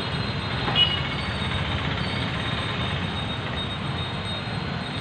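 Steady low rumble of construction-site background noise, with one sharp metallic clink a little under a second in.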